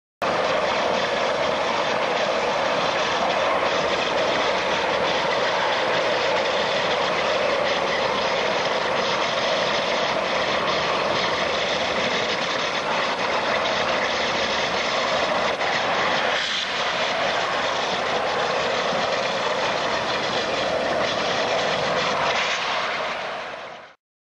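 Steady, loud roar of industrial machinery during oil-sludge mobilization in a storage tank, cutting in abruptly and fading out near the end.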